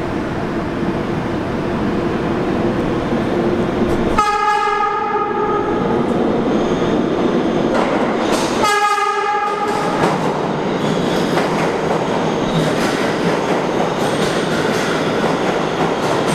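Kawasaki R211A subway train sounding its horn in two blasts of about a second each, a few seconds apart, over the steady rumble and clatter of its wheels on the rails as it approaches and enters the station.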